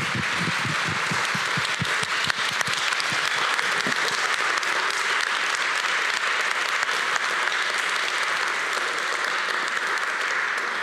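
A roomful of people applauding: steady clapping from many hands.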